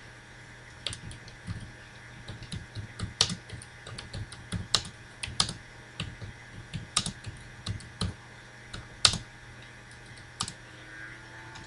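Typing on a computer keyboard: irregular key clicks, some louder than others, over a faint steady hum.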